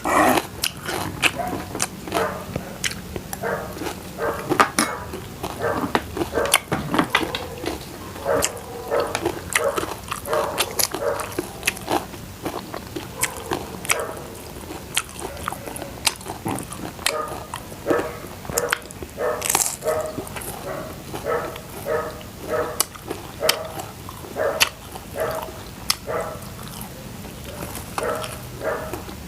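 A person chewing crunchy food close to the microphone: sharp crunches mixed with rhythmic, wet mouth sounds.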